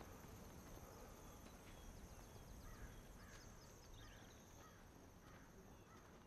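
Near silence: faint outdoor country ambience with a short run of distant bird calls in the middle.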